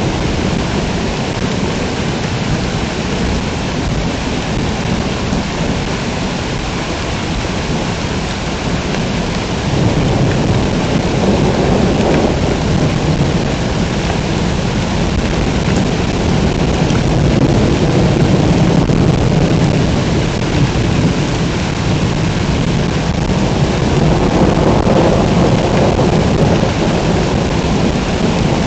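Heavy pouring rain in a thunderstorm, a dense steady hiss, with rolling thunder rumbling up and fading a few times.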